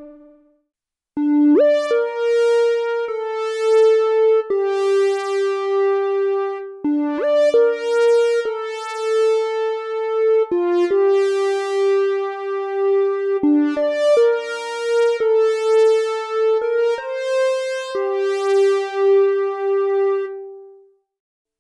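Oberheim OB-X8 analog polysynth playing a slow melody, dry with no effects, one sustained note at a time, some notes entered with a short upward pitch glide and held with a slight waver. It comes in about a second in and fades out near the end.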